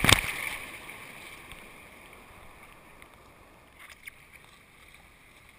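Shallow surf water splashing right at the camera: a loud splash at the very start that fades over about a second into a steady low wash of water, with two faint knocks about four seconds in.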